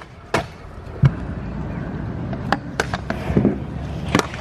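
Stunt scooter wheels rolling on concrete, starting about a second in, with several sharp clacks and knocks as the scooter hits and lands on the ground.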